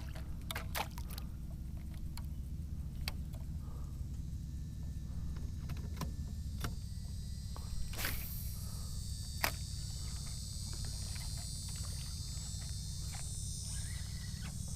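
A boat's trolling motor humming steadily as the boat is moved into position, its hum dropping a little about seven seconds in, with a few sharp knocks and clicks scattered through. A steady high insect buzz comes in about four seconds in.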